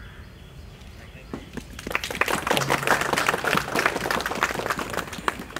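Audience applauding: a few claps about a second and a half in swell into dense clapping, which thins out near the end.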